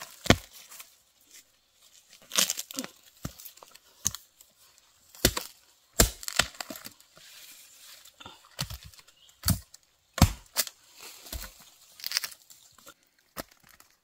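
Hand hoe chopping into forest soil and roots around bamboo shoots: about a dozen irregular sharp strikes, with crumbling earth and cracking as the shoots are broken free and pulled out.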